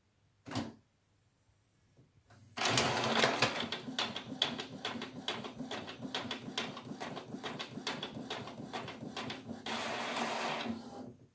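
Epson XP-355 inkjet printer printing a page: a brief mechanical sound about half a second in, then from about two seconds in a busy run of rapid, evenly spaced clicking and whirring from the print head and paper feed, turning to a smoother, steadier whir shortly before it stops near the end.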